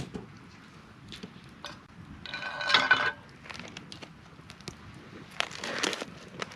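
Small clicks and light clatter of things being handled, with a brief ringing clink about two and a half seconds in and a short rustle near the end.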